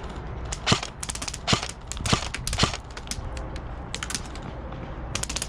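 Airsoft guns firing: four loud, sharp shots about half a second apart, then clusters of fainter, quicker cracks.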